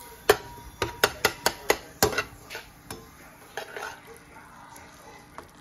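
Metal slotted spatula clacking and tapping against a frying pan as ground meat is stirred and broken up. About ten sharp clacks come in the first three seconds, then a few fainter ones.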